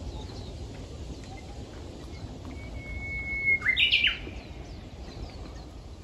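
Japanese bush warbler (uguisu) singing its song once, about halfway through: a long held whistle that breaks into a quick flourish of notes leaping up and down, the familiar "hoo-hokekyo". Faint chirps of other small birds and a low rumble lie underneath.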